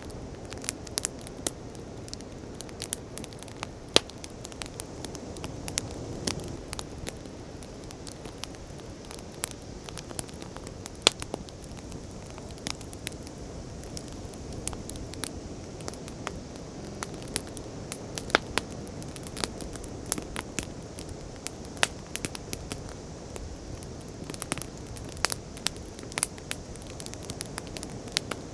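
Campfire crackling with irregular sharp pops, a few of them louder, over the soft low rush of sea waves.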